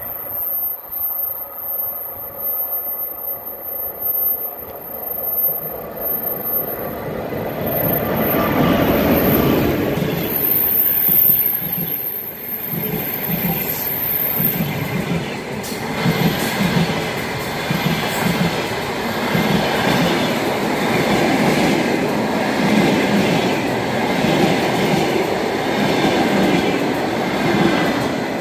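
Passenger train approaching and running through the station, growing loud about a quarter of the way in as it reaches the platform. The coaches roll past with a steady rhythmic clickety-clack of wheels over the rail joints.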